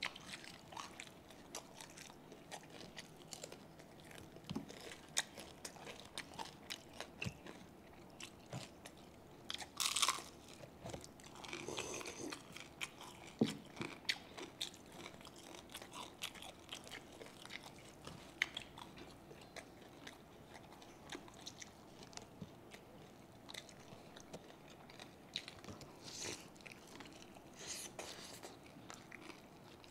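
Chewing and crunching of crispy fried pork belly (lechon kawali): a run of small crackling bites, with a few louder crunches about ten seconds in and again near the end.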